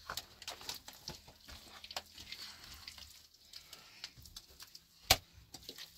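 Crackling and rustling handling sounds with many small scattered clicks, and one sharp knock about five seconds in.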